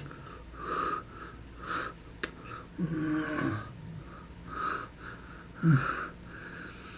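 A man's wheezy, breathy vocal noises in short bursts about once a second, with a drawn-out voiced sound falling in pitch about three seconds in and a brief sharp voiced sweep near the end.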